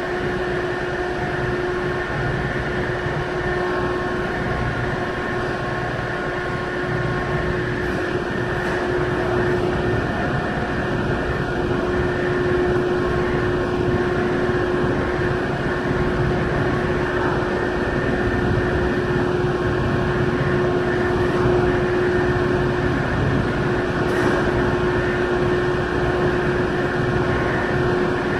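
Steady drone of a car ferry's engines and onboard machinery heard from aboard, with a constant hum running through it, growing slightly louder partway through as the ship approaches its berth.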